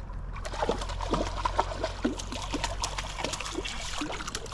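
Water splashing and plopping in quick, irregular little bursts, over a low steady rush of the creek.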